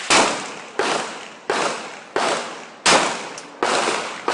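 Gunshots fired in a steady string, about seven evenly spaced shots, each trailing off in a long echo.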